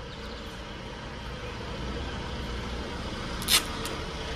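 Small delivery truck's engine running in the street, slowly growing louder as it draws near. A brief sharp sound cuts in about three and a half seconds in.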